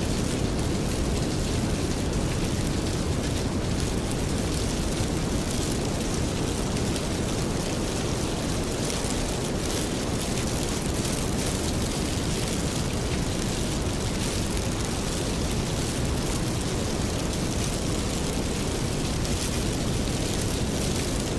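Steady rain, an even hiss over a deep rumble, mixed with a fire burning in a fireplace.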